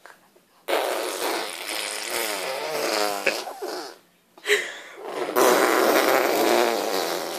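Fart noises made with the mouth, lips blown into a raspberry: two long buzzing blasts, the first starting about a second in and wavering in pitch for about three seconds, the second starting about a second after it ends and running on past the end.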